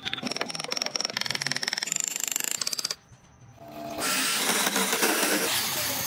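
A carving tool scraping wood in quick rapid strokes, then, after a brief drop, an electric drill spinning a wooden wheel blank while a blade cuts into the turning wood, a steady rough whirring.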